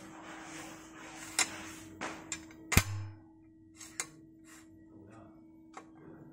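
Steel axle being slid through a tricycle's metal frame and bearing housing: scraping over the first few seconds and a string of sharp metal clicks and knocks, the loudest a little under three seconds in.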